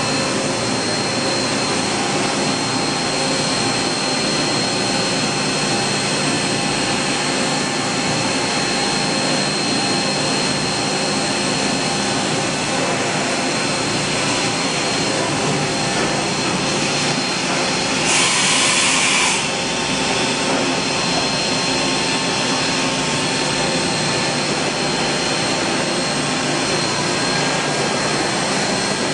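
Mazak Integrex-200IV ST CNC turning center running: a steady whirring hum with a thin, high, constant whine. About two-thirds of the way through, a louder hiss lasts a second or so.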